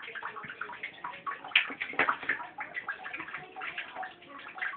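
Ferret at play, making quick, irregular clicking sounds, with a louder scuffle about a second and a half in.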